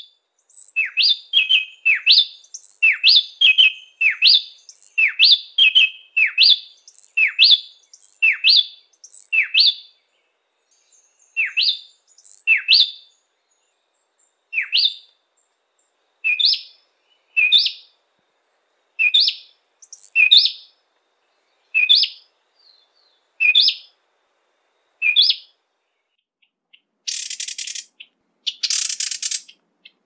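Gray-breasted wood wren (Henicorhina leucophrys) calling: a long series of short, clear, sweeping notes, coming quickly for the first ten seconds or so and then spaced about a second and a half apart. Near the end come two harsh, rasping bursts.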